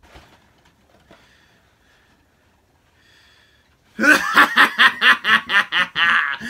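A man's loud, theatrical laugh, a run of quick 'ha-ha' pulses at about five a second, starting about four seconds in after a few seconds of faint rustling.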